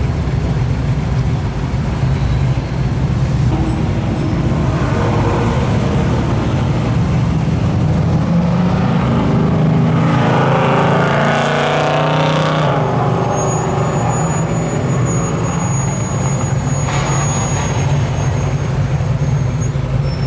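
Car engines rumbling low and steady in slow street traffic. About ten seconds in, one car grows louder as it accelerates past, then fades.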